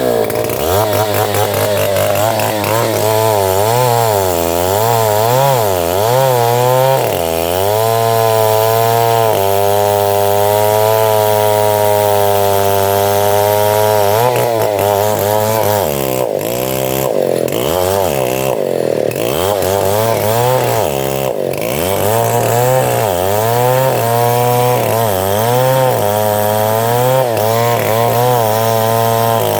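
Octagon 070 two-stroke chainsaw running under load while cutting sengon wood. Its engine pitch keeps sagging and recovering as the chain bites, steadier for a few seconds near the middle.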